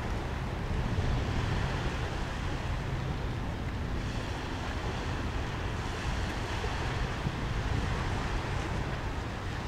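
Wind blowing across the microphone by the river: a steady low rumble with a hiss of noise above it.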